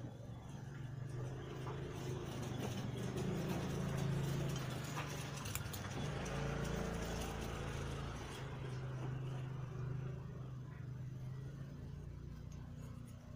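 A low motor hum, engine-like, that swells over the first few seconds and eases toward the end, with a few faint clicks.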